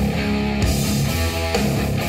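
Guitar-driven rock music with a steady beat and heavy bass, played through a pair of Kali Audio IN-8 three-way studio monitors and picked up by microphones in front of them.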